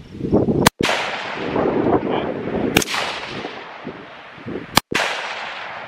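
Rifle shots on a firing line: three sharp cracks about two seconds apart, each followed by a fading echo.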